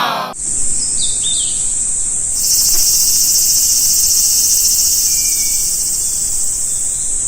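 Insects chirring in a steady, high-pitched, unbroken buzz that grows fuller about two seconds in. A few faint short chirps sound about a second in.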